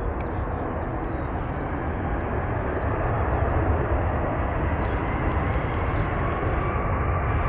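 Airliner's engines running loud and steady, a deep rumble under a broad rush of noise, with a faint whine rising slowly in pitch near the end.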